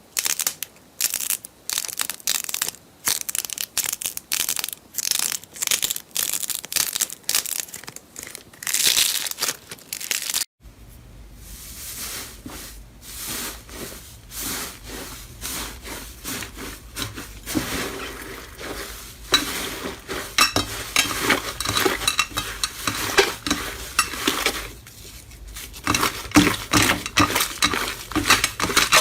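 Slime being pressed and squeezed by hand, giving a dense, rapid run of crackling clicks and pops. About ten seconds in the sound cuts to another slime clip with a low hum under similar crackling.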